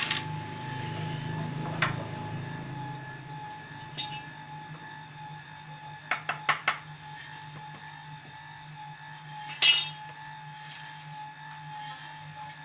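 12-volt popcorn machine running: a steady motor hum with a faint steady whine. Over it come scattered sharp metallic clinks, including a quick run of three or four a little after halfway and one louder clink near the end.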